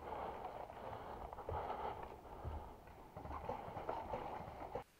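Faint footsteps and rustling of clothing and gear from a player on the move, with soft thumps about once a second.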